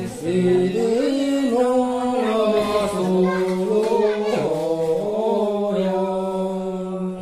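Singing or chanting: long held notes that step and slide in pitch over a steady low note.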